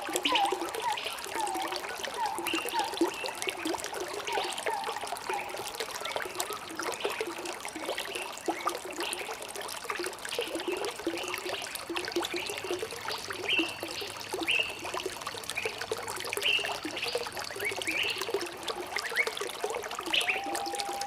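Water trickling and splashing in a stream, with birds chirping throughout. A lower call repeats about twice a second during the first few seconds.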